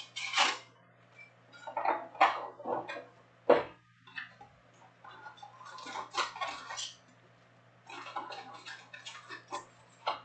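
Topps Chrome trading card boxes being opened and their wrapped packs handled on a table: irregular rustling, crinkling and cardboard scraping, with a sharp knock about three and a half seconds in, over a steady low hum.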